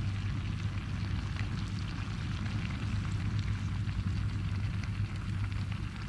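Octopus sautéing in a pan: steady sizzling with scattered small crackles, over a steady low hum.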